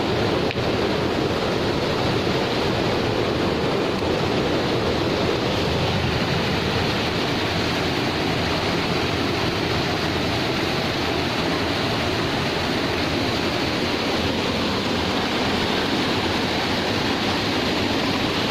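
Waterfall rushing steadily, an even wash of falling water at a constant level.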